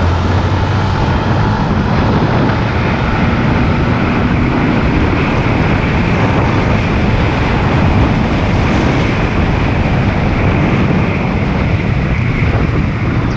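Yamaha Exciter 150's single-cylinder four-stroke engine running hard as the bike accelerates along the road on its stock 14-tooth front and 42-tooth rear sprockets, mixed with steady wind rush on the microphone.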